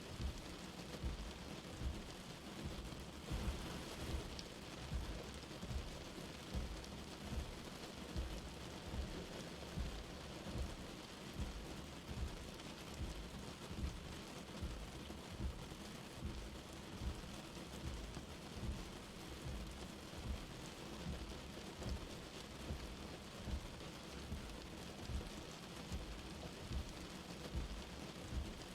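Light rain falling steadily, with soft low thuds repeating about once a second underneath.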